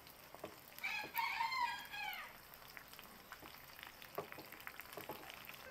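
Eggplants frying in hot oil in a pan: a faint sizzle with scattered crackles. About a second in, a rooster crows once, for about a second and a half, falling in pitch at the end and louder than the frying.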